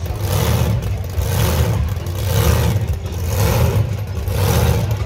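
Engine of a modified pulling truck running loud, revving up and down about once a second.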